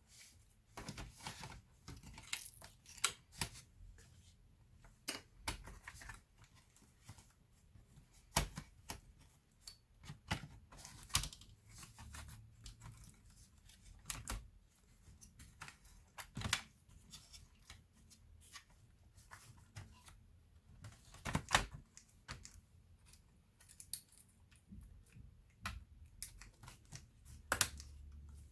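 Irregular clicks, taps and knocks from hands working on the parts of an Asus X54C notebook during disassembly, with a few sharper clicks standing out among softer handling noise.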